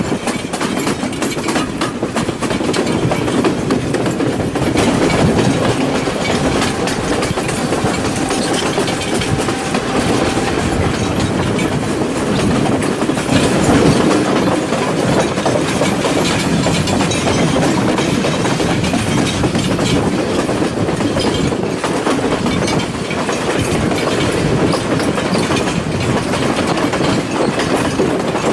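A passenger train running along the track, heard from on board: a steady rumble with the rapid clickety-clack of the wheels over the rail joints.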